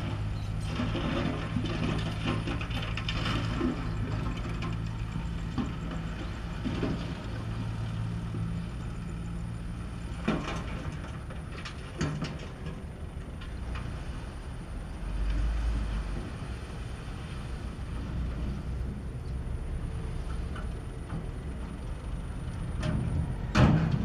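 Diesel engines of a dump truck and a small crawler bulldozer running steadily while the truck's bed tips up to unload soil. Several sharp metal clanks come through, the loudest near the end.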